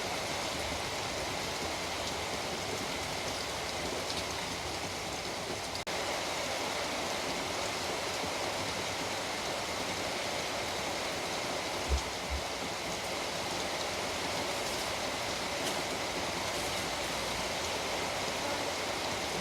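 Steady rain falling, an even hiss. The level dips briefly about six seconds in, and two short low thumps come about twelve seconds in.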